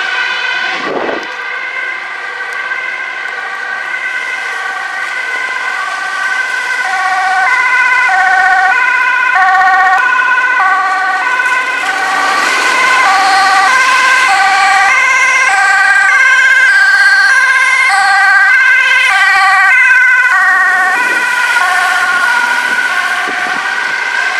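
Two-tone sirens of emergency vehicles, several sounding at once, each switching between a high and a low note. They grow louder through the middle and ease off near the end.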